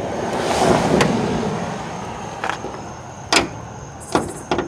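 Hood of a 2009 Mitsubishi Galant being shut onto a newly fitted replacement latch: a rising whoosh ends in a sharp click about a second in as it closes, followed by several separate sharp clicks and knocks, the loudest about three seconds in.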